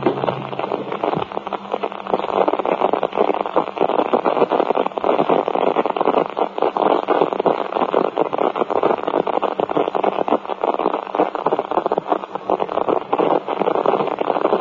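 Loud, continuous crackling radio static, the sound of a broadcast breaking up under interference.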